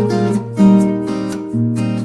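Background music: plucked and strummed acoustic guitar playing a steady melody.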